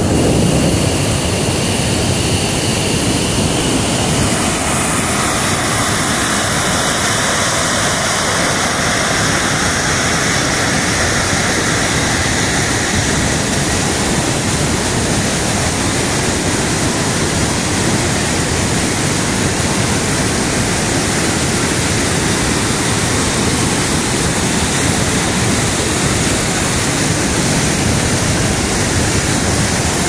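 Steady, loud rush of a large waterfall in heavy flow, with water pouring over rock ledges and churning in the pool below.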